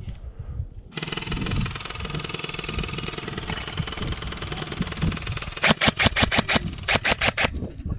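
Airsoft electric rifle firing: a steady motor-and-gearbox whir starts abruptly about a second in and runs for several seconds, then two quick strings of sharp shots snap out near the end.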